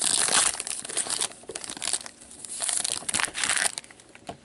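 Trading-card pack wrapper crinkling and tearing as gloved hands rip it open, in two spells of loud crinkling: one at the start and another about two and a half seconds in.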